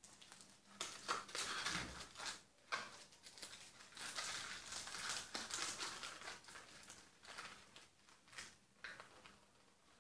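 Paper and wrapper crinkling and rustling in irregular stretches, with a few sharp clicks, as hands fill and close a small paper party-favour box.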